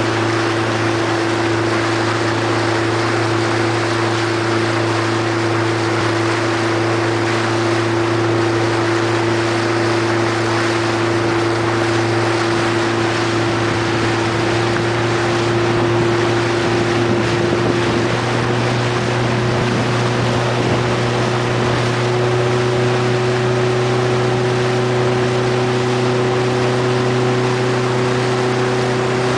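A small boat's outboard motor running at a steady cruising speed: a constant engine hum over a rush of wind and water noise. The engine note rises slightly a little over halfway through.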